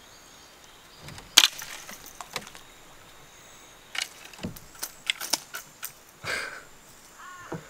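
Fishing rod and spinning reel being handled in a canoe while a lure is snagged in a tree: one sharp crack about a second and a half in, then a scatter of small clicks and knocks from the reel and line.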